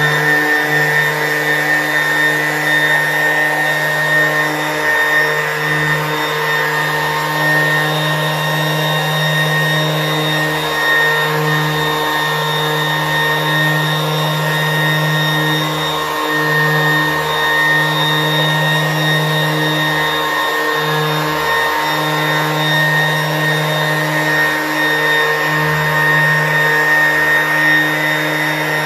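Orbital sander with no sandpaper on its pad running steadily, buffing paste wax into a cast-iron table saw top: an even motor hum that holds the same pitch throughout.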